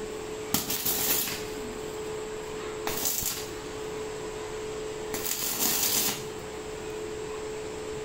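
Stick welding: the arc strikes in three short bursts, about a second in, at three seconds and at five to six seconds, tack-welding a steel lock case to a steel gate. A steady hum runs underneath.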